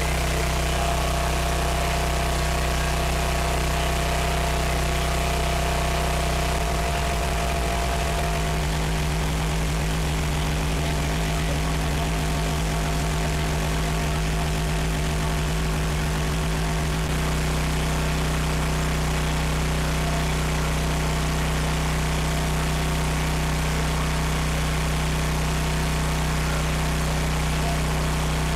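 A 15 HP 420cc single-cylinder gas engine running at steady speed, driving the pressure washer pump, with water jetting from the gun into a plastic bucket. For about ten seconds in the middle, the low engine hum turns choppy.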